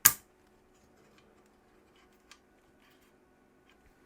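A single sharp plastic click as the battery cover snaps back onto the Macintosh Colour Classic II logic board, followed by a few faint small handling clicks.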